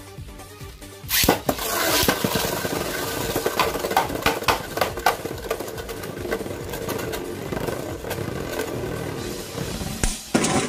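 Two Beyblade Burst spinning tops launched into a plastic Beyblade stadium about a second in, then spinning and clashing: a steady whir broken by many sharp plastic clacks as they collide, with a cluster of hard hits near the end. Background music plays underneath.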